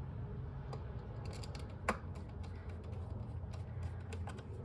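Scattered small clicks and taps of hard parts being handled and fitted in a car's engine bay, over a steady low hum; one click about two seconds in is the loudest.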